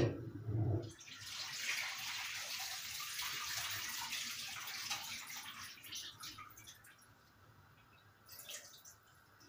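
Onions frying in oil in an open pressure cooker pot on a gas burner. A hiss of sizzling rises about a second in, holds for a few seconds and dies down to faint crackles.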